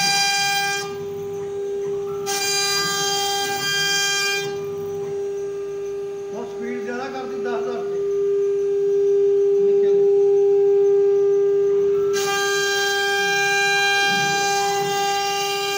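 CNC wood router spindle whining at a steady high pitch while its bit routes a pattern in a wooden panel. The upper overtones drop away for stretches and come back.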